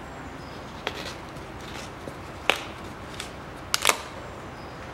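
A few sharp plastic clicks from a bottle of gear oil being handled and readied for pouring, over a steady hiss. One click comes about a second in, a louder one halfway through, and a quick double click near the end.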